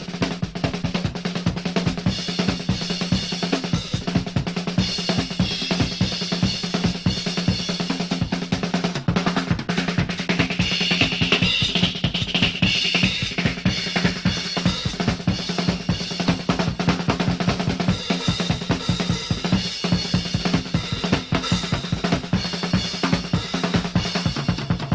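Music driven by a drum kit playing a fast, dense beat on bass drum, snare and cymbals, over a steady low held note.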